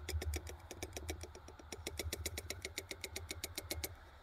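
A small metal tin shaken over a stainless steel cup to tip out instant mashed potato flakes: a rapid, even clicking, about seven or eight clicks a second, that stops shortly before the end.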